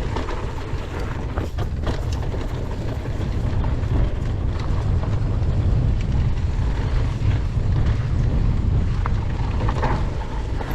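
Wind buffeting the camera microphone on an e-mountain bike riding fast down a rocky dirt trail, under a steady deep rumble of ride noise with scattered clicks and rattles from the tyres and bike over the rough ground.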